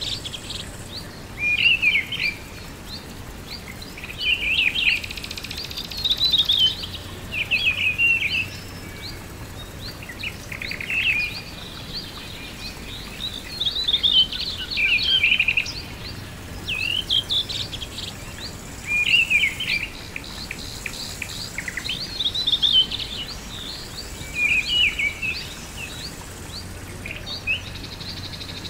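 Birdsong: short, quick chirping phrases that recur every second or two over a steady background hiss.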